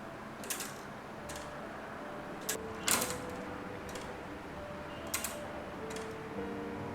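Wooden gear clock cut from padouk, ticking: sharp wooden clicks and knocks of its movement about once a second, the loudest about three seconds in. Soft background music plays underneath.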